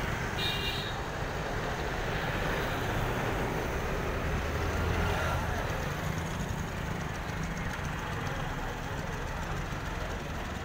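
Steady street traffic noise, with a vehicle engine passing in the middle. A brief high-pitched horn toot sounds about half a second in.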